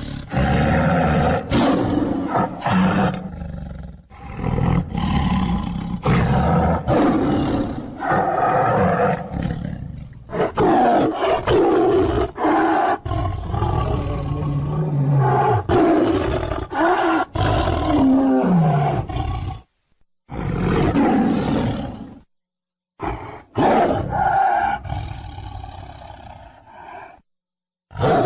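Tiger roaring and growling, one long loud roar after another, with a few abrupt silent gaps in the last third.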